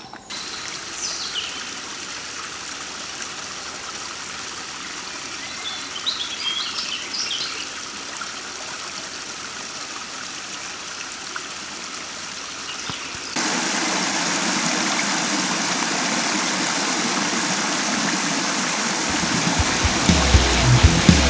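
Running water: a small stream splashing down over mossy rocks, with a few short bird calls. About thirteen seconds in, it changes suddenly to a louder, fuller rush of water spilling over a low stone weir. Near the end, a low steady beat of music comes in.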